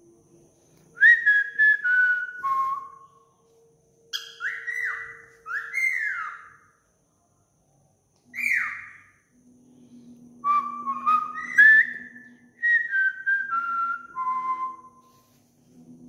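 Cockatiel whistling: phrases of short notes stepping down in pitch, broken by a few quick downward-swooping whistles, with short pauses between phrases.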